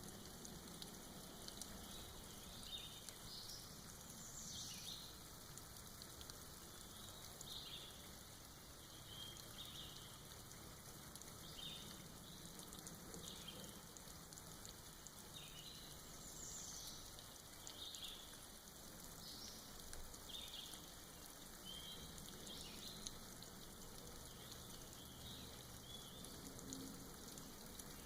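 Faint, steady patter of light rain dripping in a forest, with short, high bird chirps every second or two.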